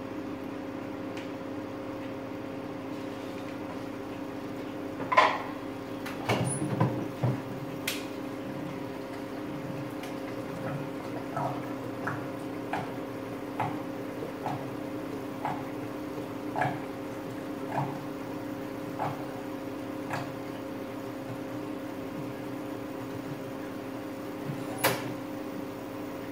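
Kitchen utensils knocking and clinking over a steady hum while cornflour and water are mixed and added to the soup: a few sharp knocks, then a run of light clinks about one a second, like a spoon stirring in a bowl, and one more sharp clink near the end.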